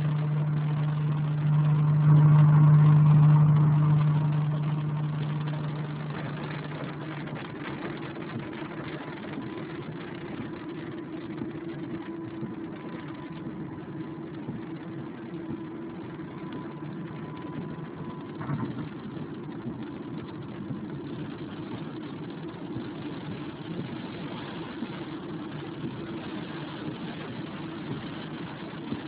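Car engine running, heard from inside the cabin while driving in the rain, over a steady hiss of road noise. The low engine drone is loudest in the first few seconds, then eases into a steadier, higher hum, with a single click about 18 seconds in.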